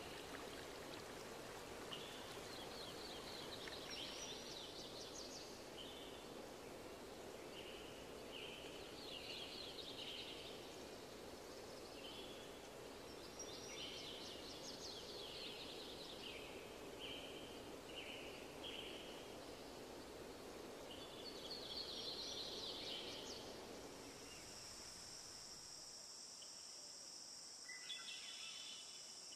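Nature ambience: short chirping bird phrases repeating over a steady rushing background. About 24 seconds in, the rushing and chirps give way to a steady high insect drone.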